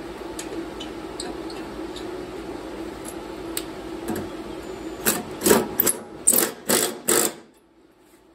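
Cordless drill with a socket tightening the mower blade's spindle bolt, running in about six short bursts near the end, over a steady low hum that stops just after them.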